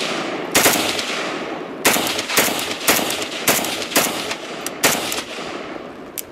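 Rifle firing about seven single shots at uneven intervals, roughly half a second to a second apart, each with a ringing tail, rather than an automatic burst: its selector has slid out of full auto.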